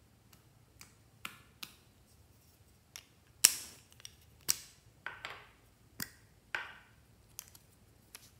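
Plastic lipstick cases being handled: an irregular string of sharp clicks and pops as the caps are pulled off, the loudest a little over three seconds in, several trailing off in a short rasp.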